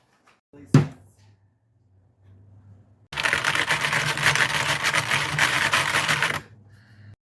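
A single thump about a second in, then a fast run of clicking that lasts about three seconds, like rapid typing on a computer keyboard.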